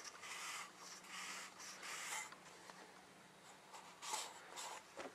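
Shop rag and compressed-air blow gun cleaning out the inside of an oil filter housing cap: a quick series of short rubbing, hissing strokes for about two seconds, then two more a little after the four-second mark.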